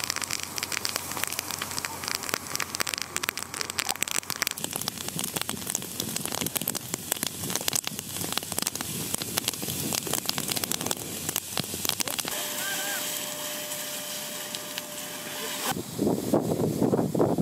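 Burning field stubble crackling with dense sharp pops under the hiss of a fire hose's water spray. A few seconds past the middle a steady hum comes in, and near the end the sound changes to a lower gusty rush like wind on the microphone.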